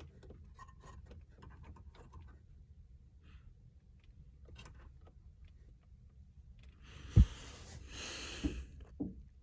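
A man's long, heavy sigh about seven seconds in, set off by a few dull knocks, after faint small handling clicks.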